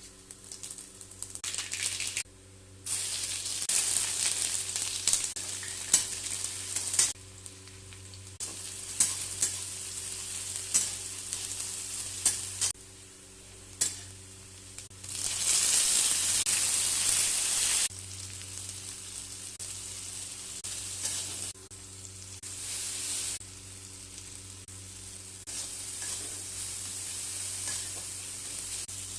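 Food sizzling as it fries in a hot pan, with a spatula stirring and clicking against the pan several times. The sizzle jumps between louder and quieter stretches every few seconds, over a low steady hum.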